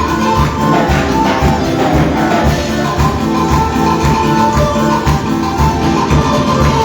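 Instrumental passage of a live praise band's song with a steady beat and no singing.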